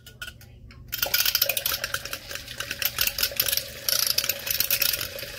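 Rechargeable handheld milk frother with its balloon-whisk head, switched on low and whipping egg white in a plastic cup. It starts about a second in: a faint steady motor hum under a busy, rattly whisking noise.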